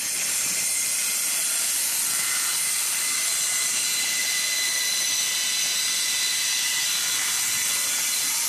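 A workshop machine running steadily: an even hiss with a faint high whine.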